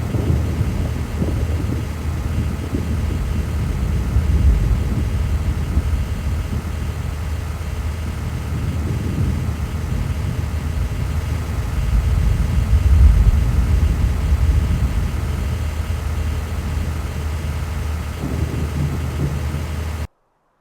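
Vehicle driving: a steady low rumble of engine and road noise that swells and eases a little, then cuts off abruptly just before the end.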